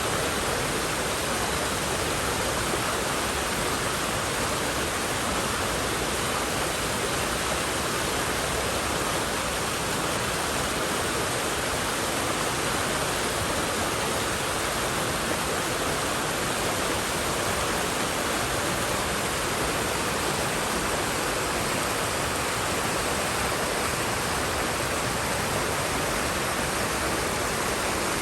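River water rushing steadily over rocks, an even, unbroken wash of noise.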